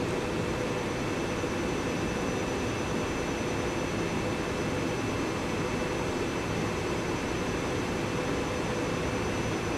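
A pair of SEPTA Silverliner IV electric railcars standing at the platform with their onboard equipment running: a steady hum and whine with a few held tones that does not change.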